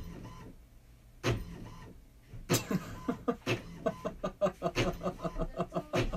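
A home inkjet printer clicking and running as it feeds out a sheet. From about two and a half seconds in, a man laughs hard in quick repeated bursts.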